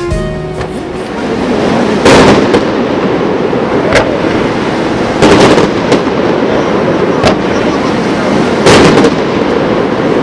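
Fireworks fired from the river: a dense, continuous crackle with a loud bang every second or two, the loudest about two seconds in, about halfway through, and near the end. A song cuts off right at the start.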